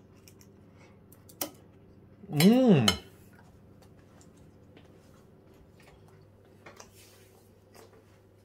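Steel knife and fork clicking against a ceramic plate: one sharp click about a second and a half in, then faint light ticks. Just before the halfway point comes a short man's hum, about half a second long, rising then falling in pitch. It is the loudest sound.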